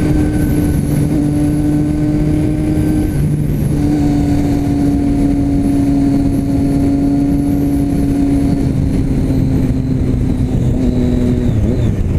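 Motorcycle with a newly fitted aftermarket exhaust cruising in fifth gear at about 80 km/h, a loud, steady exhaust note. The note breaks briefly a little over three seconds in, then holds and sags slightly in pitch toward the end.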